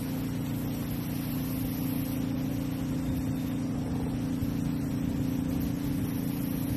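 A small motor hums steadily at one even pitch.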